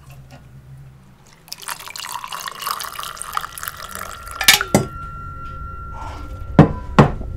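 Liquid poured from a kettle into a ceramic mug, the pouring sound rising in pitch as the mug fills. It stops with a knock about four and a half seconds in, and two sharp knocks follow near the end.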